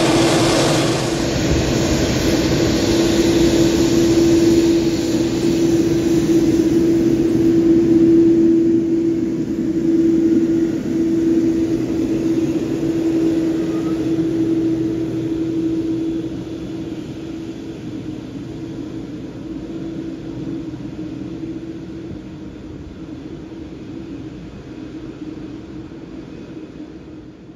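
Jet airliner engines running at taxi idle, a steady droning tone over a rushing noise. The sound weakens from about halfway through and fades out at the end.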